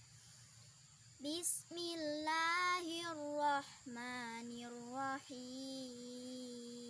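A young girl's voice chanting Quran recitation in the melodic tajwid style: after a pause of about a second, an ornamented phrase with the pitch wavering up and down, then long held notes on a steady pitch.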